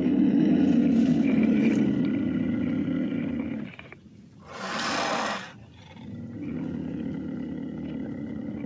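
Cougar growling in a long low rumble that stops a little under four seconds in. About five seconds in there is a short breathy hiss, then a second, quieter growl.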